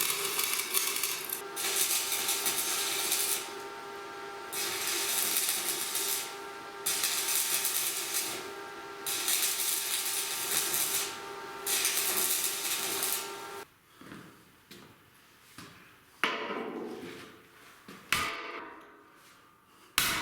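Electric arc welding crackling and hissing in several runs of a few seconds, laying a bead around the inside of an excavator boom's pivot bushing so the weld shrinks it. Then, after about thirteen seconds, a few separate metal knocks as the shrunk bushing is driven out with a pin.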